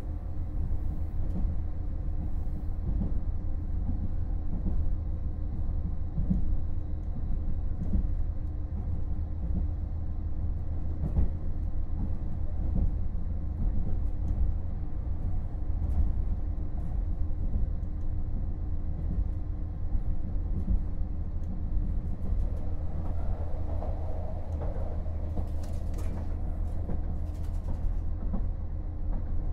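Running sound of a JR KiHa 48-500 diesel railcar heard from inside the car: a steady diesel engine rumble and wheels running on the rails, with a few sharp knocks.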